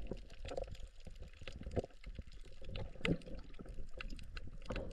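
Water sloshing and trickling, with many small irregular clicks and crackles.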